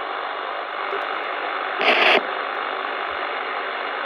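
CB radio receiving on the 11 meter band in single sideband between transmissions: a steady band-limited hiss of band noise from the speaker, with a brief louder burst of noise about two seconds in.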